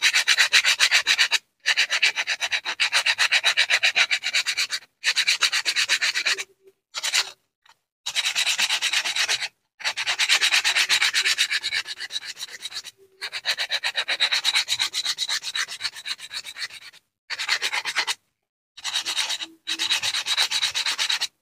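Sandpaper rubbed by hand in quick back-and-forth strokes on the rusty metal of a blender motor's rotor assembly, sanding off rust and crust. The strokes come in runs of a few seconds broken by short pauses.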